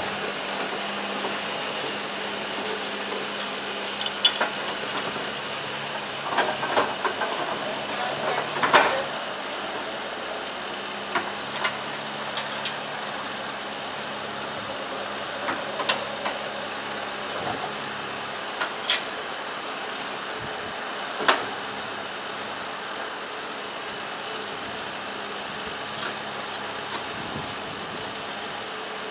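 Narrowboat's diesel engine running steadily at low revs with a low hum, and a few short knocks and clicks scattered through, the loudest about nine seconds in.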